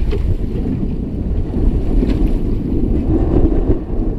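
Steady low rumble of wind buffeting the microphone on an open boat at sea.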